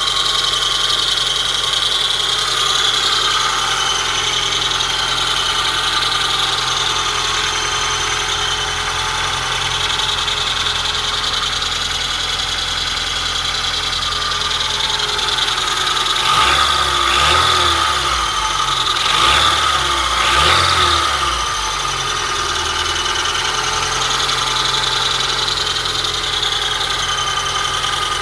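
Honda Prelude BB3 engine idling cold with a steady high-pitched squeak over it, the squeak the owner hears only until the engine reaches working temperature. About two-thirds of the way in the engine is revved briefly three times, the squeak rising and falling with it.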